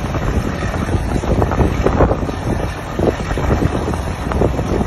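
Wind buffeting the microphone over the steady rumble of the truck cranes' engines running while they hoist a fishing boat.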